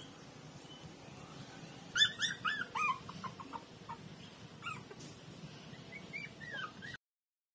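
Puppies yelping and whimpering: a quick run of short, high yelps about two seconds in, then scattered fainter whines. The sound cuts off suddenly near the end.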